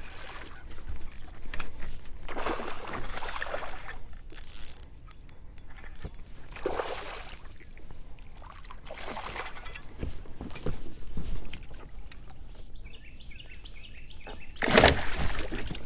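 Short rustling swishes every second or few, from an angler handling a rod and spinning reel in a small boat. A louder swish near the end comes as he sets the hook on a fish.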